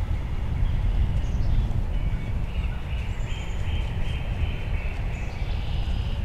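Wild birds calling in the woods, with a run of about five short repeated notes in the middle, over a steady low rumble.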